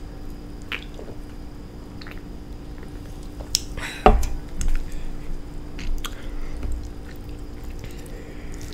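A person chewing instant noodles with wet mouth noises, broken by scattered short clicks and smacks, the loudest a little after four seconds in.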